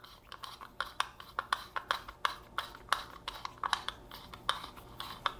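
A small screw being turned by hand with a screwdriver down through the centre of a lamp fitting: a run of small, sharp clicks and scrapes, several a second.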